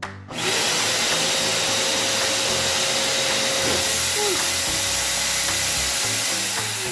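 Black & Decker 10-litre wet and dry vacuum cleaner switched on: its motor comes up to speed within about half a second into a loud, steady rush of air with a whine. Near the end it winds down, the whine falling in pitch.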